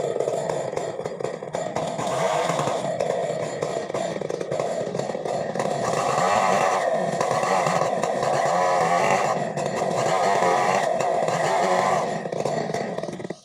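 Chainsaw engine running, its pitch and loudness rising and falling as it revs, then cutting off suddenly at the very end.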